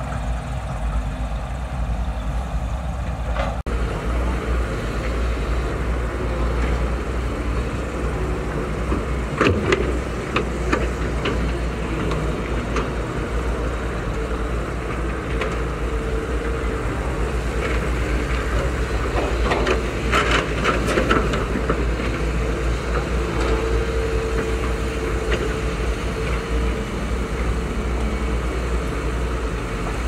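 Diesel engines of several Caterpillar hydraulic excavators running steadily under digging load, a deep rumble with a steady whine, and clusters of short knocks and clanks about ten and twenty seconds in.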